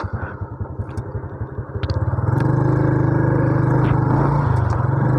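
Motor scooter's small engine running while riding, getting louder and steadier about two seconds in as it picks up speed, with a small shift in pitch near the end.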